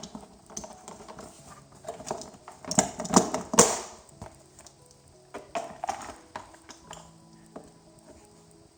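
Plastic clicks and knocks as the generator's side panel is unlatched and taken off, the loudest cluster about three seconds in, over soft background music.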